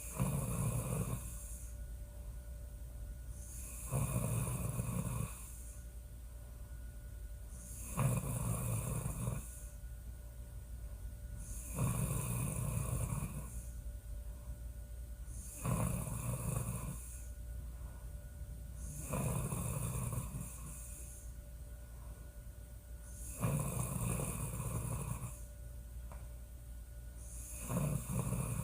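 A woman snoring steadily, one snore roughly every four seconds, eight in all, each drawn out for about a second and a half.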